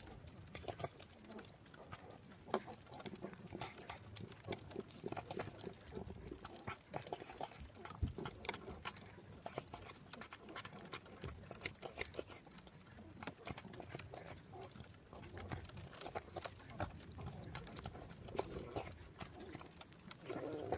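A cat with a head cold snuffling and sniffing through a blocked, runny nose. It comes as irregular small clicks and wet snorts.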